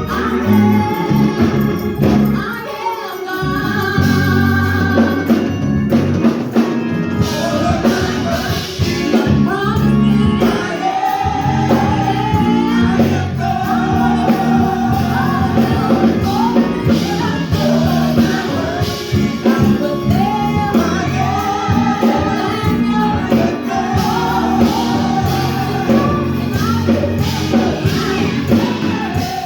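Gospel music: voices singing over a steady band accompaniment with bass notes.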